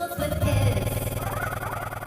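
Synthesizer music with a heavy bass, starting abruptly after a brief silence.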